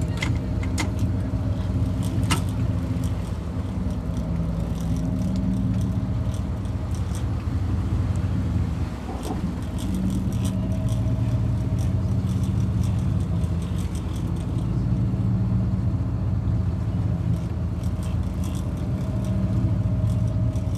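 Charter fishing boat's engines running steadily, a low, even drone with a brief dip about nine seconds in. A few sharp clicks sound over it near the start.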